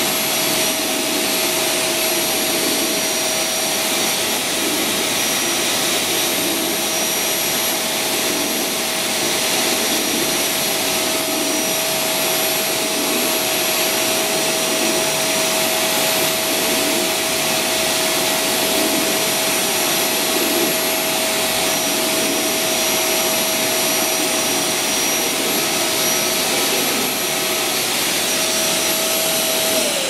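Canister vacuum cleaner running steadily: an even rush of air with a constant motor whine.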